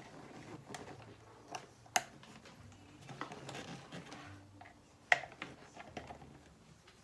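Scattered small clicks and taps of hardware being handled and fitted by hand, with two sharper clicks about two and five seconds in.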